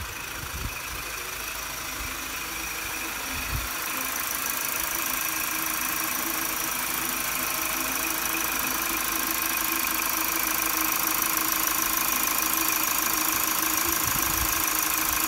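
Diesel car engine running steadily with a steady high whine on top, getting louder over the first few seconds and then holding; the engine is being warmed up for DPF cleaning.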